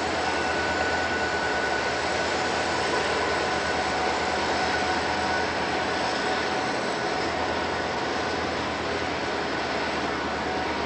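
Guilford diesel locomotives running steadily at the head of an approaching freight train, with a low, even engine rumble.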